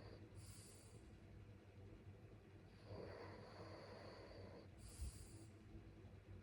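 Faint, slow breathing of a sleeping person, with no clear snore. A soft breath of about two seconds is followed by a short sharp hiss, and the cycle repeats about every four and a half seconds.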